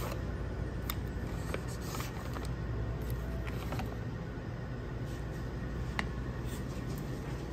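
Steady low hum of the shop's room tone, with scattered short crinkles and clicks from plastic drink pouches being taken off the shelf and handled.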